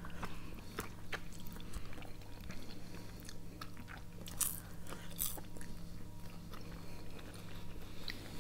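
Close-up eating sounds: orange slices being bitten off the peel and chewed, a scatter of small clicks with two louder bites about four and five seconds in. A faint steady low hum runs underneath.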